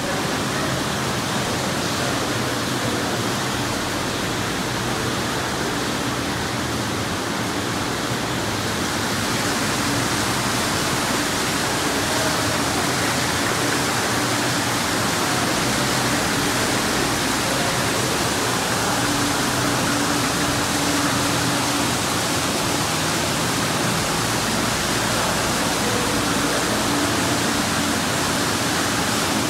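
Steady rush and splash of fountain water jets falling into an underground lake. It grows louder and brighter about nine seconds in.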